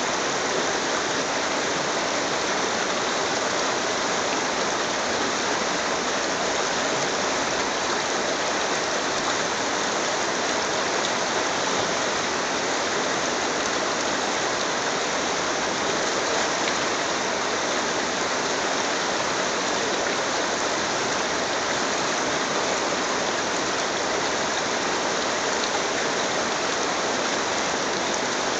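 Shallow mountain brook rushing and splashing over a stony bed, a steady, unbroken water noise.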